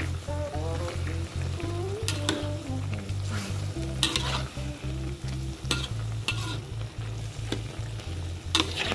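Metal ladle stirring and scraping in a wok while sliced patola (sponge gourd), chicken and rice vermicelli sizzle. Sharp scrapes and clanks come about two, four, six and eight and a half seconds in.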